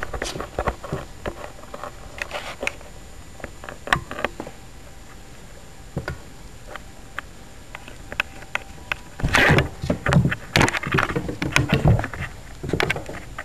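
A calico kitten scuffling right against the camera. Irregular taps, scratches and fur rubbing on the microphone come in sparse bursts and get busiest about nine seconds in.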